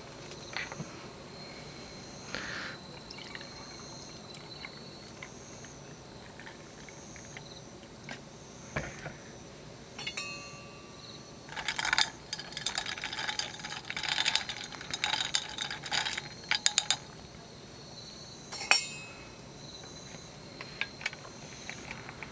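A drink is poured over ice in a tall glass, then a long bar spoon stirs it, clinking rapidly against the ice and glass for about five seconds past the halfway mark. A single clink follows a little later.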